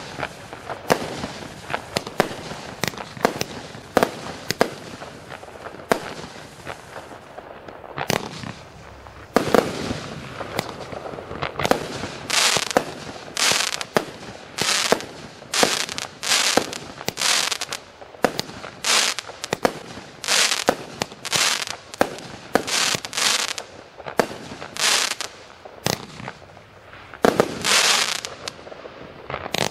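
A 255-shot compound fireworks cake firing shot after shot: a dense string of sharp launch reports and bursts. From about twelve seconds in, a run of longer, brighter bursts follows at about one and a half a second.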